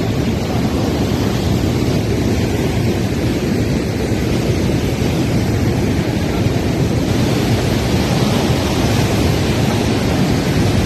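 Cyclone-driven storm surf crashing and churning onto a sandy beach, a steady loud rush heaviest in the low range, with wind buffeting the microphone.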